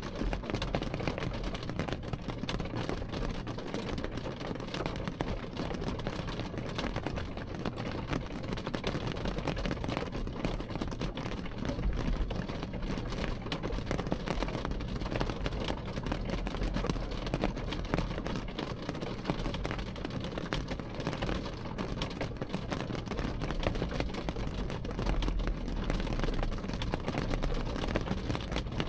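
Rain falling on window glass: a dense, steady patter of many small drop ticks, with a low rumble underneath that swells now and then.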